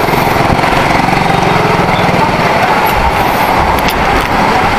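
Motorcycle engine running steadily while riding in slow traffic, its rapid even pulse under a steady hiss of wind and road noise, with a few brief clicks about four seconds in.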